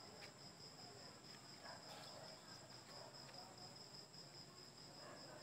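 Faint crickets chirping in a steady, evenly pulsing high trill, with a few faint clicks.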